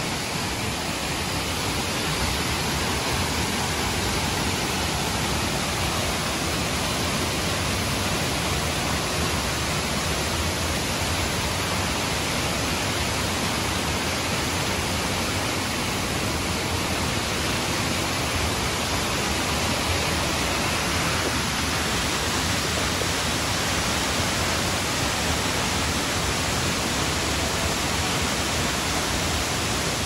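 Waterfall rushing: a steady, even roar of falling water that does not let up.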